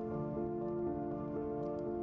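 Soft background music: sustained, gently changing notes with no beat.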